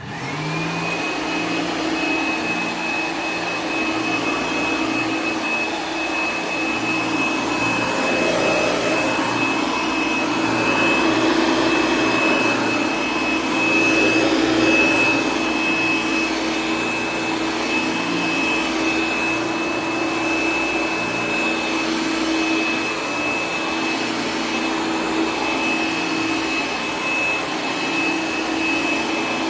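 1964 Hoover Dial-A-Matic 1100 clean-air upright vacuum switched on. Its motor spins up within about a second to a steady high whine over a lower hum, then runs on steadily with slight swells in loudness.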